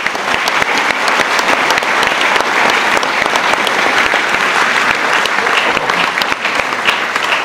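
Audience applauding: many hands clapping in a dense, steady applause.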